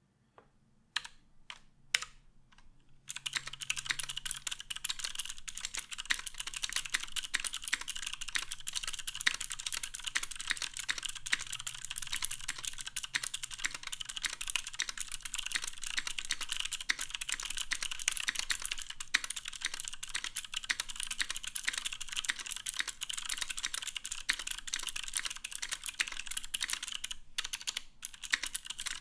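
Matrix 8XV1.0 mechanical keyboard with clicky Cherry MX Green switches on an aluminum plate being typed on. A few single keystrokes come first, then fast continuous typing from about three seconds in, thinning to scattered keystrokes near the end.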